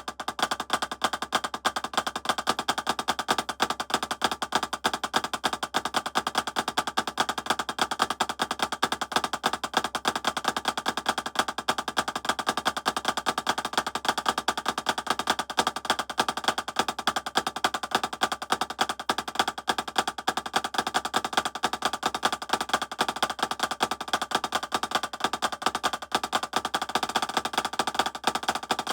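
Drumsticks playing fast, continuous flam rudiment patterns, a rapid unbroken stream of sharp strokes at an even level.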